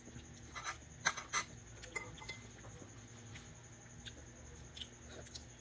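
Small clicks and clinks from eating balut: duck eggshell being cracked and peeled by hand, and a metal spoon tapping a glass bowl, with two sharper clinks just after a second in.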